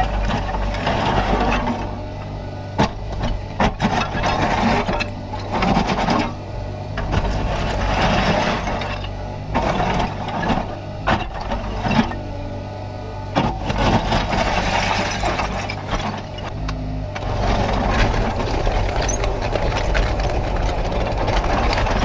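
Kubota KX61-3 mini excavator's diesel engine running steadily under hydraulic load, swelling and easing repeatedly as the boom and bucket move, with scattered sharp knocks from the working bucket.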